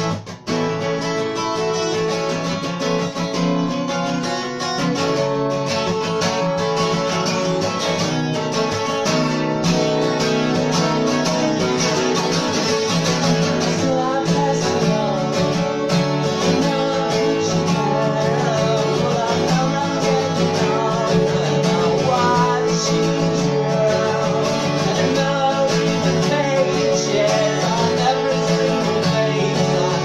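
Twelve-string acoustic guitar strummed in steady chords, with a brief break just after the start. A man's singing voice comes in over it from about halfway through.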